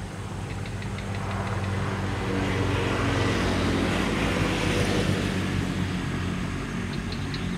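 A motor vehicle driving past on the road, its noise building to a peak about halfway through and then fading, over a steady low hum.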